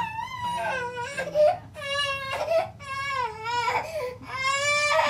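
A 14-month-old girl crying in a string of wavering wails with short breaths between them. She is upset by sound newly introduced through her just-activated bilateral cochlear implants, and tired.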